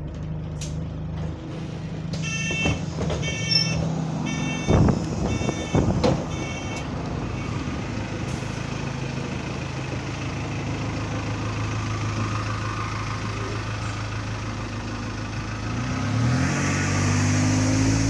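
Arriva London single-decker bus ENX25: five evenly spaced door-warning beeps with two heavy knocks as the doors shut, then the engine idling and revving up near the end as the bus pulls away. The engine has a moaning note, which the uploader puts down to a burst turbo.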